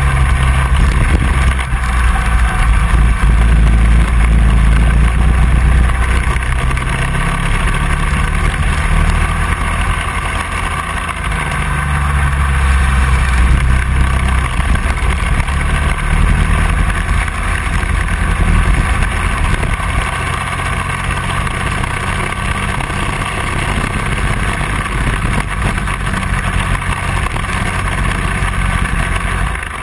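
Kart engine running hard on track, heard close to its exhaust silencer, its note swelling and easing repeatedly as the throttle is opened and lifted through the corners.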